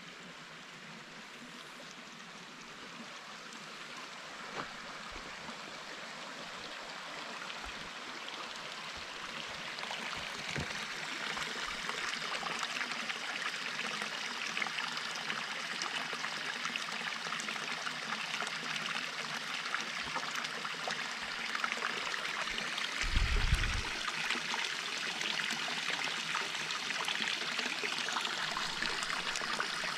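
Spring water pouring from a pipe spout into a stone basin, with a small stream running alongside, a steady splashing and trickling that grows louder over the first third and then holds. A brief low bump about two-thirds of the way through.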